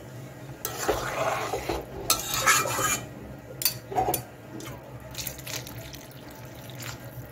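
Hot water poured from a pot into a kadai of simmering pea and potato curry, loudest in the first few seconds with a shorter spell of pouring after.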